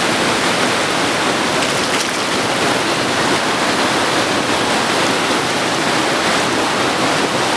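Fast river water rushing and churning over stones at the bank: a loud, steady rush with no let-up.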